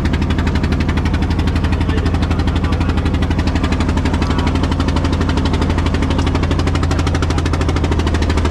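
Wooden fishing boat's inboard engine running steadily under way, with a loud, rapid, even beat.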